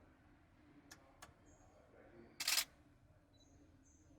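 A camera shutter fires once, a sharp burst a little past halfway, after two faint clicks about a second in. Short, faint high-pitched beeps come and go.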